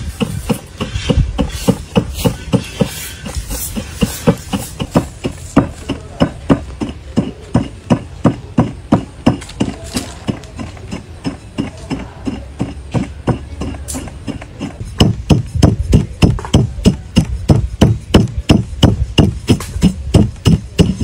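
Brass pestle pounding raw rice grains in a brass mortar: a steady run of metal knocks, about two a second, faster and louder in the last six seconds or so.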